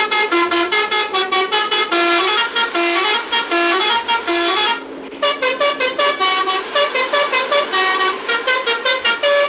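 Basuri telolet bus horn playing a fast melody of short stepped notes. There is a brief break about five seconds in, then the tune carries on.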